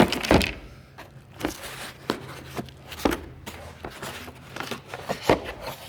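Tools being handled in a toolbox drawer: a string of irregular knocks and clatters as the torque wrenches are picked up and moved.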